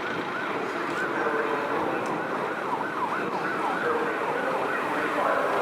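Fire engine's electronic siren sounding a rapid yelp, its pitch sweeping up and down several times a second.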